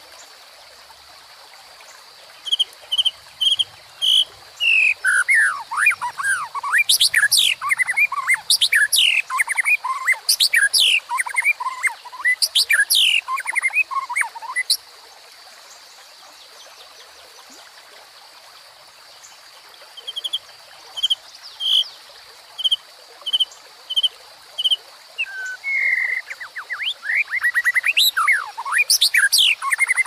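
White-rumped shama singing: runs of short, evenly repeated notes that break into bursts of varied, sharp downslurred whistles. The song stops for a few seconds around the middle and then starts again. Underneath is the steady rush of a small forest stream.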